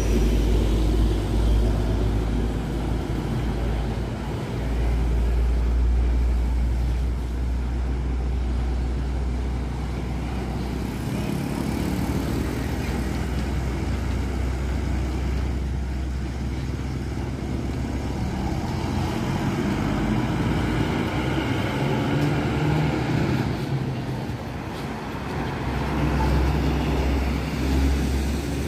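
Diesel engines of intercity coaches running as they pull in and move past, a steady low rumble with road traffic noise that swells and eases.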